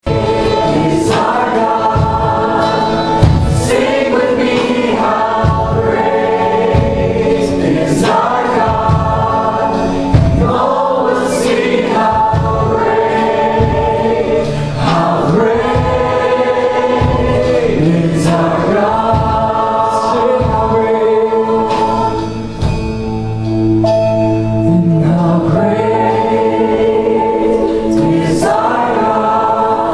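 Church worship team singing a slow chorus together: a male lead voice with acoustic guitar, backed by a group of mixed voices and band accompaniment.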